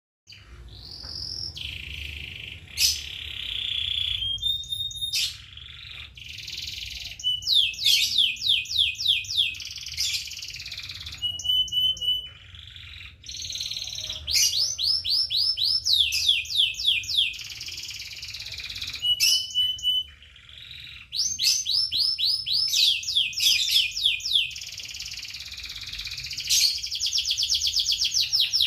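A songbird singing loud phrases of rapid, sweeping chirps, broken by short pauses and a few held whistled notes, ending in a fast, even trill.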